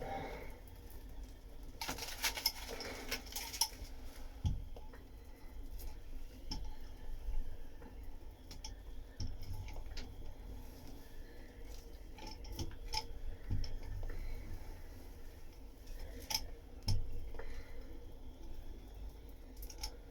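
Laminating roller worked over resin-wet fibreglass cloth, with faint clicking and crackling as trapped air bubbles are rolled out. A louder stretch of rolling comes about two seconds in.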